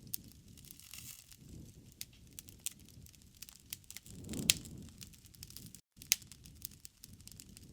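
Wood fire crackling in a fireplace: irregular pops and snaps over a low rumble, with one louder pop about four and a half seconds in. The sound cuts out for an instant just before six seconds in.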